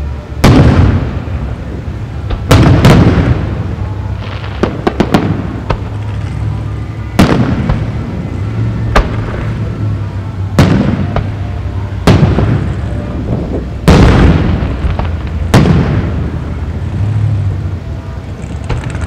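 Aerial fireworks shells bursting overhead: a string of loud booms about every one to two seconds, some in quick pairs, each trailing off in a rolling echo, with a few smaller pops between them.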